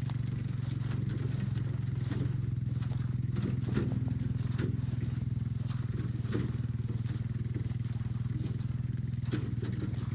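An engine running steadily at an even pitch, with scattered short knocks and rattles over it.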